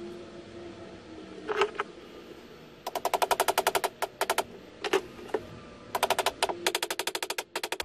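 Hammer tapping small nails through a square wooden dowel into a bookshelf, in quick runs of light taps about ten a second with short pauses between them. A single knock comes a little before.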